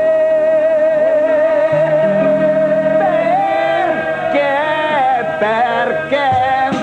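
Comic cabaret song: a voice holds one long high note for about six seconds while the accompaniment and other parts move beneath it.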